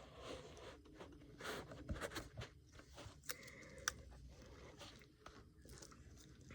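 Faint crackling and rustling of a tape-wrapped ball of Play-Doh being squeezed and popped by hand, with scattered small clicks; the sharpest click comes a little under four seconds in.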